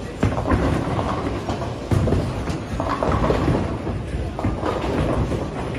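Bowling alley din from many lanes at once: balls rolling down the lanes and pins crashing, a continuous rumble with sharp clatters about a quarter second in and again near two seconds in.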